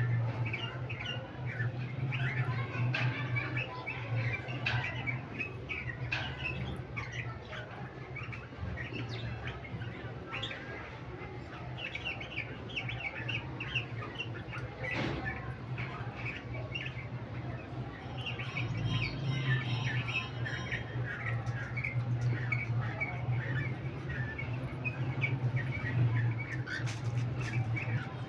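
Lovebirds chirping and chattering in quick, short calls without pause, over a steady low hum.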